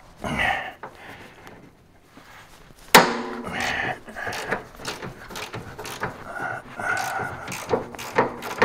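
Hand tools working on metal fittings: a sharp clank about three seconds in, then irregular clicking and scraping.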